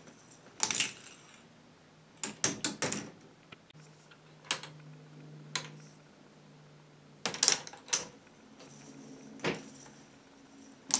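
Plastic K'NEX balls clattering through a ball machine's track and helix: sharp clacks, single or in small clusters, every second or two, over a faint low hum.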